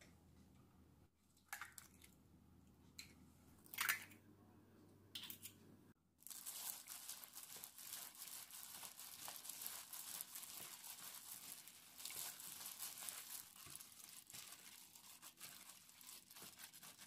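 A hand in a thin plastic glove squishing and kneading a wet mixture of mashed tofu, chopped shrimp and vegetables with starch and egg in a glass bowl: continuous crinkling and squishing from about six seconds in. Before that, a few sharp knocks, the loudest about four seconds in.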